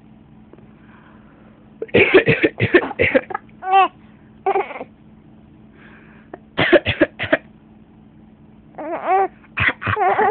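A person coughing in repeated fits: quick runs of several coughs about two seconds in, midway and near the end, with single coughs between. Some coughs have a voiced tone.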